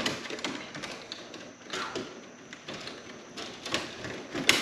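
Irregular clicks, taps and scraping of stiff electrical wires being bent and pushed into a breaker panel, with a sharper click near the end.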